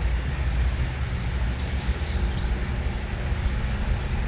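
Steady low outdoor rumble, with a short run of several high, quick, falling bird chirps about one and a half to two and a half seconds in.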